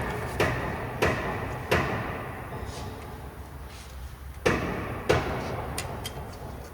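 A series of sharp thuds: three about two-thirds of a second apart, then a pause of a few seconds, then two more.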